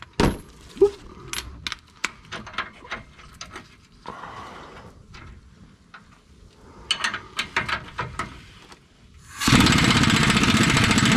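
Scattered metal clinks and knocks from a wrench and socket on the steering rack mount. About two-thirds of the way in comes a loud burst of air impact wrench hammering, about two seconds long, spinning off the 15/16 nut on the rack-and-pinion mounting bolt.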